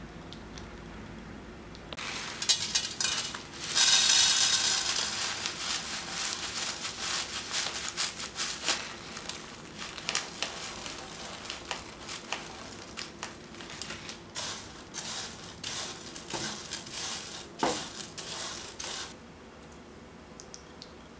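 Small chocolate crunch and caramel-nut crunch pieces poured onto an enamel tray: a rushing rattle about four seconds in, fading. Many small clicks and scrapes of the pieces and utensils against the enamelware follow, stopping shortly before the end.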